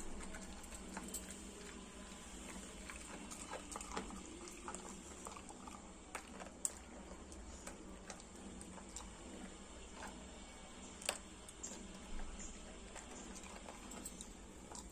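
Cocker spaniel chewing and mouthing chopped green leaves on the floor: faint, scattered clicks and small crunches of its mouth, over a low steady hum.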